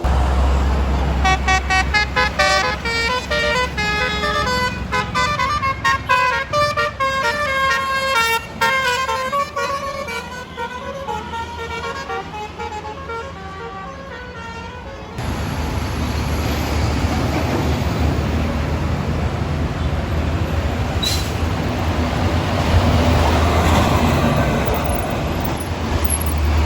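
A bus's multi-trumpet 'basuri' musical air horn plays a fast telolet melody of changing notes for about fifteen seconds over a low engine rumble. It then changes abruptly to the steady noise of road traffic.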